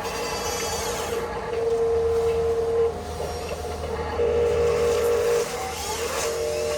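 Electric drive motors and gearboxes of radio-controlled construction trucks whining at a steady pitch in spells of about a second, starting and stopping, with a wavering beat in one spell where two motors run together.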